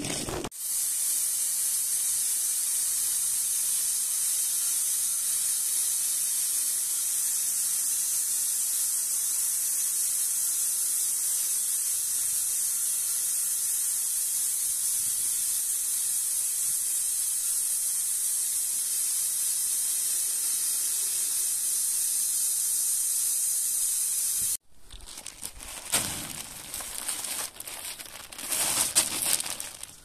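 Band sawmill running: a steady, even high hiss that cuts off abruptly after about 24 seconds. A few irregular knocks and rustles follow.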